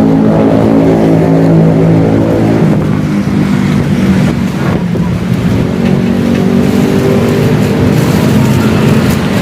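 An engine running steadily close by: a loud, even, low hum that holds its pitch.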